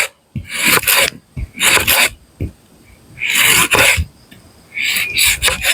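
Four rasping strokes of a tool working wood, each about half a second to a second long, with short pauses between.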